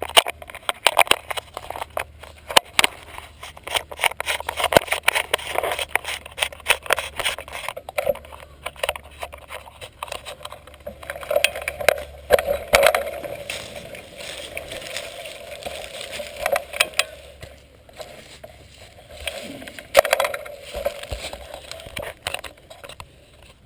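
Mountain bike riding a dirt forest trail, heard close from a camera mounted on the fork: a steady stream of rattles, knocks and scrapes from the bike and tyres over the ground, with a steadier hum through the middle.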